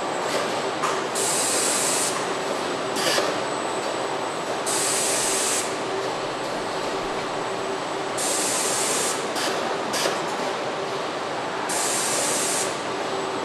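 Car body-shop assembly noise: a steady machine drone with a faint constant hum, broken every few seconds by short bursts of compressed-air hiss from the robot cell, about four of them lasting roughly a second each plus a few brief puffs.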